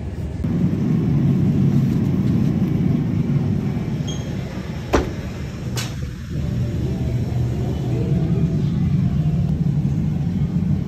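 Steady low rumble of a moving road vehicle, with two sharp clicks a little under a second apart about halfway through.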